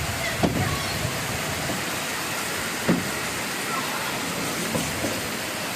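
Heavy rain pouring steadily, an even hiss, with two brief knocks about half a second and three seconds in.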